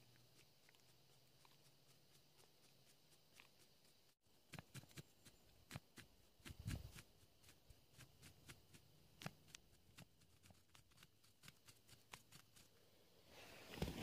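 Knife blade scraping shavings off a piece of tinder fungus on a wooden stump: faint at first, then from about four seconds in a string of short, irregular scrapes and ticks, with a louder rustle near the end.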